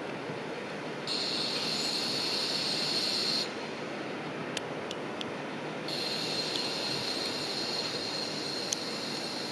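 JR KiHa 40 diesel railcar moving slowly over yard track, its wheels squealing high and shrill. The squeal starts about a second in, breaks off for a couple of seconds with a few light clicks, then comes back, over a steady background noise.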